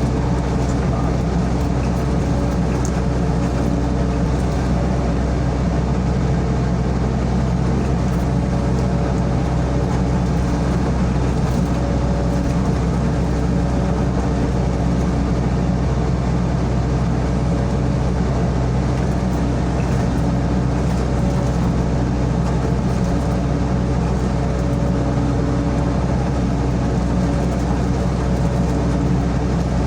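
SANY SY55C mini excavator's diesel engine running steadily under work, a constant drone with no marked revving.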